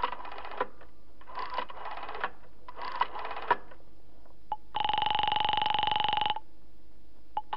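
Telephone being dialed: three short runs of rapid dial clicks, then a click on the line and a buzzing ring tone for about a second and a half. The ring tone starts again near the end.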